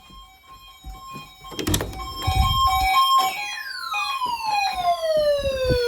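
Siren-like electronic alert tones: two steady tones, then a single tone that sweeps down in pitch from high to low, quickly at first and then more slowly.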